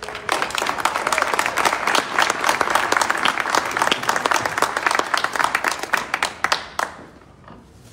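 Audience applauding: many hands clapping in a dense patter that starts just after the beginning and dies away about seven seconds in.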